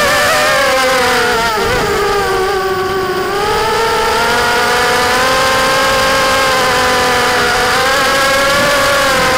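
The four DYS 1306 3100 kV brushless motors of a micro racing quadcopter, spinning GemFan 4045 props, heard from the onboard camera as a continuous buzzing whine. The pitch sinks about two to three seconds in as the throttle eases, climbs back and holds, then dips briefly again about eight seconds in.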